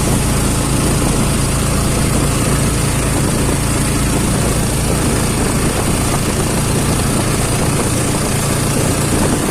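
A vehicle's engine running steadily on the move, with steady road and wind noise on the microphone.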